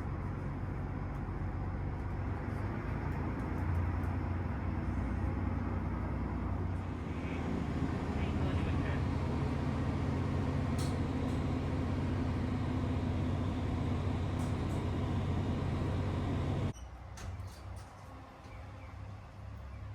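A large vehicle engine running with a steady deep hum that grows a little louder about seven seconds in, then cuts off suddenly near the end, leaving much quieter outdoor background.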